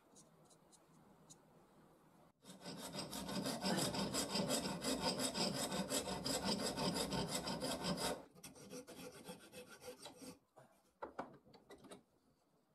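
A steel file rasping across a wooden saw handle in fast back-and-forth strokes for about six seconds, then going on more softly. Near the end come a few light knocks of wood and tools.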